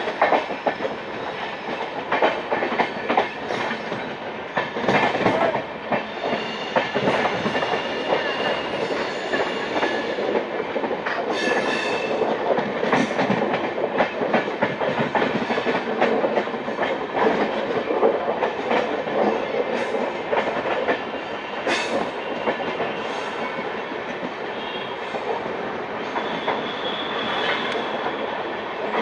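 Ekta Nagar Express coach wheels rattling and clattering over rail joints and points as the train pulls out through the station yard, with a high squeal from the wheels now and then.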